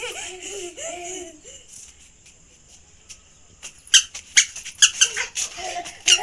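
A small child's high voice in short rising and falling squeals for the first second and a half. From about four seconds in come children's hand claps, quick and uneven, the loudest sounds, with some laughter among them.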